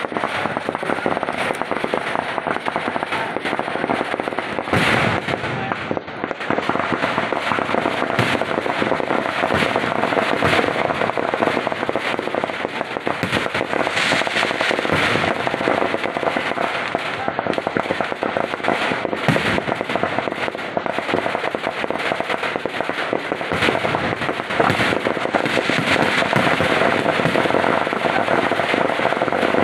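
Kerala vedikkettu fireworks: a dense, unbroken barrage of firecrackers bursting in rapid succession, the bangs running together into a continuous crackle.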